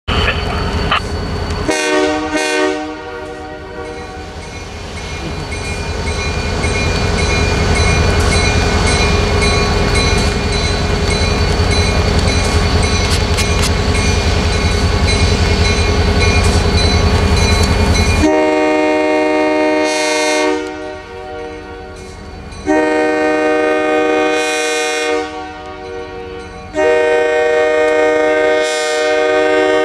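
Diesel locomotive air horn sounding long blasts for the grade crossing. Through the first half it sounds over a loud, steady low rumble. In the second half it gives three long blasts with short gaps between them.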